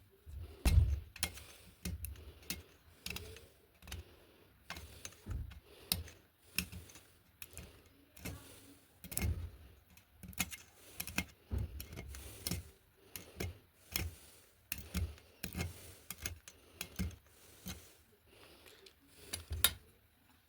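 Irregular clicks, taps and knocks of hand work on small parts, a few a second, with a heavier knock about a second in and another near the end.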